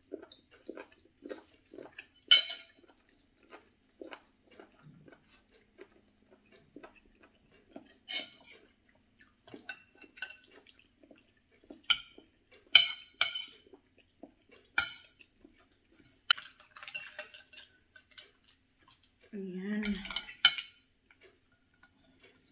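Metal spoon and fork clinking and scraping against ceramic bowls and a plate at irregular intervals, a few sharp clinks standing out, with quieter chewing and mouth sounds between. A brief hummed voice sound comes near the end.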